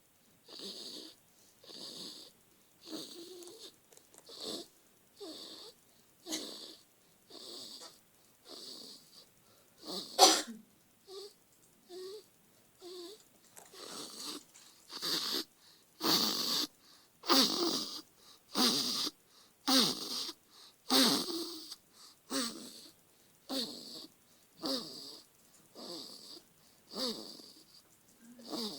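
Newborn baby snoring in sleep: short, wheezy noisy breaths at just under one a second, growing louder through the middle stretch. One breath about a third of the way in is sharper and louder than the rest.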